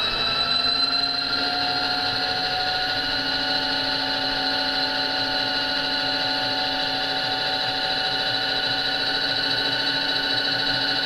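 Motor drive of the mill/drill's table running the table along its X axis: a steady whine of several tones that rises slightly in pitch over the first few seconds, then holds.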